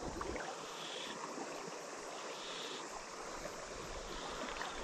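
A shallow river running over stones: a steady rush of water.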